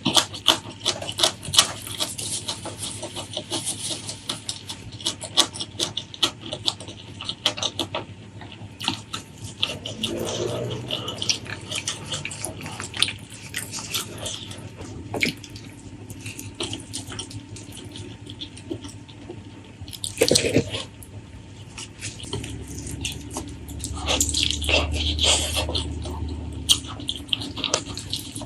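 Close-miked wet eating sounds: chewing, lip-smacking and sticky clicks of a mouth working through soft, gelatinous food, coming in quick clusters.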